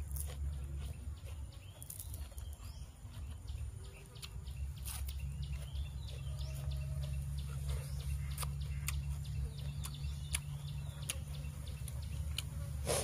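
Close-up chewing and scattered mouth clicks of a person eating raw beef wrapped in leafy greens, over a steady low hum.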